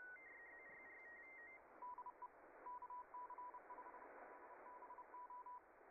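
Faint shortwave receiver hiss with the tail of an incoming slow-scan television (SSTV) transmission. For about a second and a half a tone flips quickly between two close high pitches, and after a short gap a single lower tone beeps on and off in short and long beeps like Morse code until near the end. This is the sending station's identification after its image.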